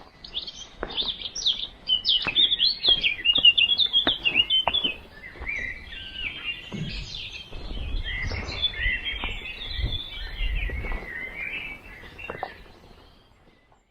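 Small songbirds chirping and singing, many quick high notes crowded together for the first five seconds, then looser song. Scattered sharp clicks and a low rumble in the second half, and the sound fades out near the end.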